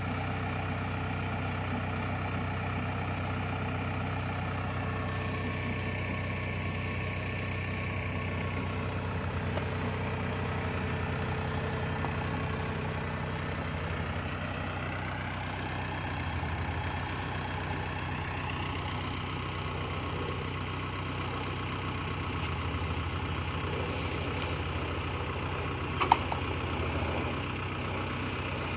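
Kubota DC-70 combine harvester's diesel engine running steadily at idle while grain is bagged from its outlet. One sharp knock near the end.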